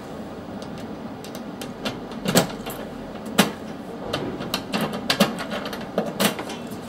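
Sharp metallic clicks and knocks from a small steel DVR safe box as its front panel is pushed shut and locked with a key, about four louder knocks spread out among lighter clicks.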